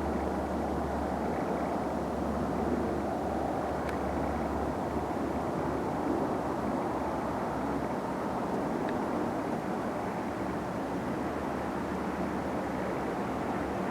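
Steady background rumble, an even noise with no distinct events.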